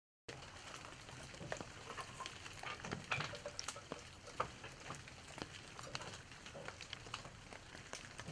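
Wood-fired stoneware kiln burning hard during a firing: the fire crackles with irregular sharp pops over a steady hiss.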